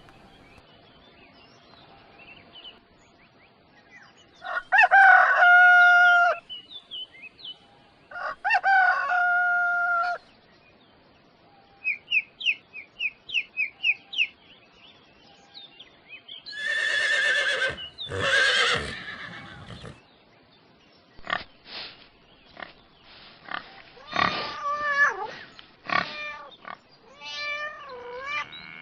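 Farmyard animal sounds: a rooster crows twice, then comes a run of short high chirps, a loud harsh call about halfway through, and clucks and short calls near the end.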